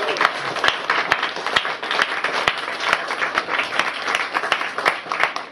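Audience applauding: many hands clapping, with single claps standing out sharply in a dense, even stream.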